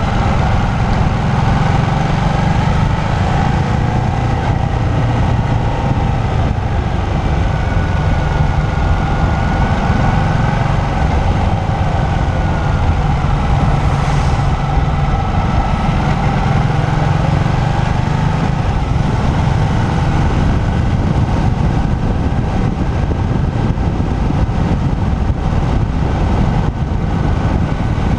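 Motorcycle engine running at moderate revs, its note drifting gently up and down with the throttle, over a steady rush of wind and road noise.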